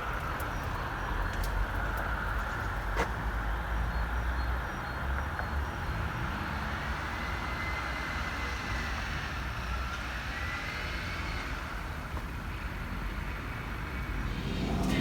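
A car driving along: steady engine and road rumble, with a few faint clicks.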